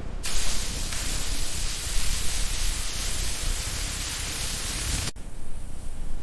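A steady hiss, an even noise with no pitch, starting abruptly just after the start and cutting off sharply about five seconds in, over a steady low rumble.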